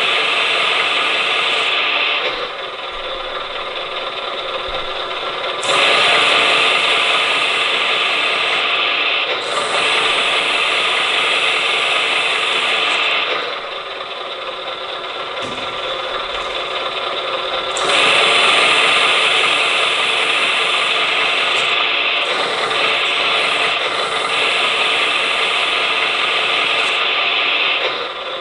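Hydraulic pump of an RC truck's hydraulic crane and outrigger system running steadily with a mechanical gear whir. Its level drops and rises again twice as the outrigger support leg is retracted and extended.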